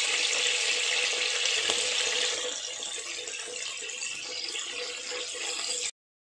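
Crushed garlic sizzling in hot oil in a wok, a steady hiss that drops to a softer level about two seconds in and cuts off suddenly near the end.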